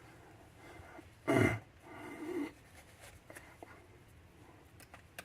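A short, loud breathy vocal sound from a person about a second in, then a brief wavering hum, followed by faint, scattered light clicks.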